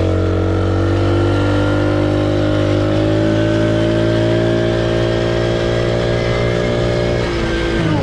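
Four-wheeler (ATV) engine running under throttle at a steady pitch, then easing off about seven seconds in.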